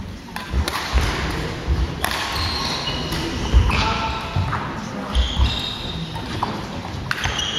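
Badminton hall sounds: a scattering of sharp racket-on-shuttlecock hits and short squeaks of court shoes on the wooden floor, with footfalls and a few voices echoing in the large hall.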